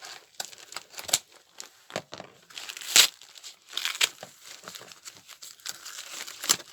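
Package wrapping being handled and opened by hand: irregular crinkling and rustling, with a couple of sharper, louder rustles about three and four seconds in.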